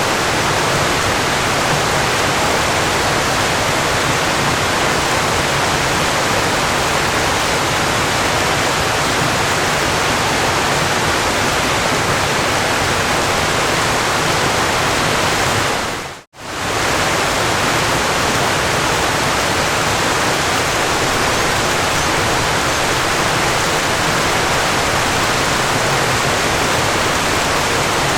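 Water falling steadily, an even, unbroken rush of noise, with one brief dip to near silence about sixteen seconds in.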